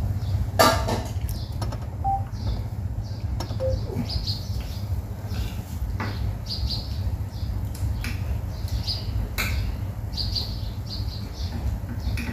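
Steady low rumble, likely a room fan, under small birds chirping in short high bursts every second or so, with a few sharp clicks of chopsticks and spoons against bowls and plates, the loudest about half a second in.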